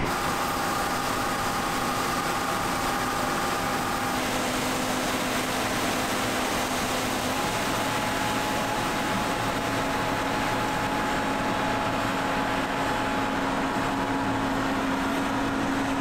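Steady hum of an idling farm vehicle's engine and cab fan under an even hiss, the hum's pitch stepping to new notes about four and again about seven seconds in.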